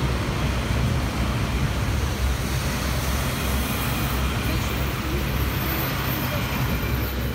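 Red DB Regio diesel multiple unit passing at close range: a steady low rumble of its engine and wheels on the rails.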